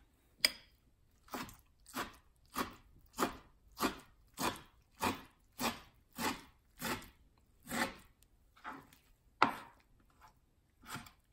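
Chef's knife chopping napa cabbage kimchi on a plastic cutting board, a steady run of cuts about one and a half a second, each cut crunching through the cabbage and tapping the board. The cuts slow and thin out near the end.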